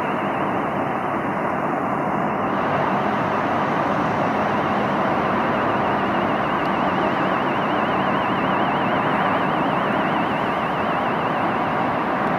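Steady roar of road traffic beside the railway, with a faint high warbling tone from about four to nine seconds in.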